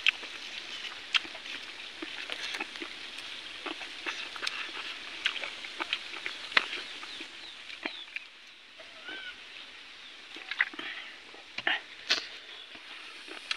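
Close-up eating sounds: wet chewing and lip-smacking as rice and chicken are eaten by hand, heard as an irregular string of sharp clicks.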